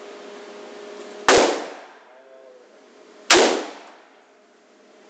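AK-47 rifle fired twice in single shots about two seconds apart, each sharp crack followed by a short echoing tail inside an indoor range.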